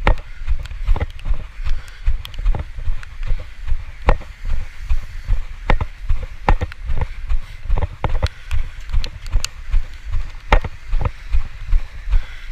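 Brisk footsteps on wet pavement, about two to three steps a second, each landing as a low thump, some with a sharp click.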